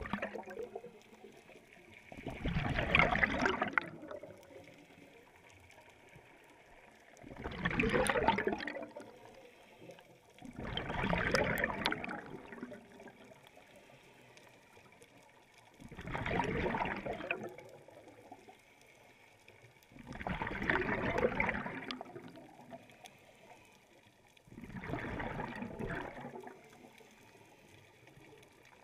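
Scuba regulator exhalation heard underwater: six bursts of bubbling, each lasting a second or two and coming about every four to five seconds in a slow breathing rhythm, with quiet between breaths.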